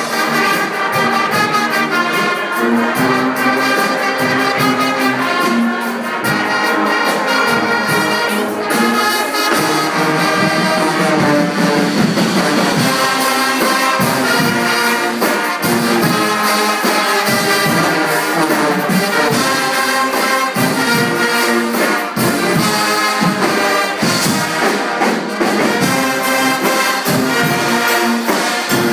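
Guggenmusik band playing live: brass of trumpets, trombones and sousaphones over bass drums and other drums keeping a steady beat.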